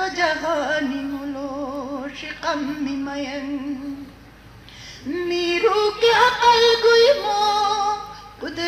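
A single voice singing slow, drawn-out phrases with a wide vibrato on the held notes. There is a short break about halfway through before the next phrase begins.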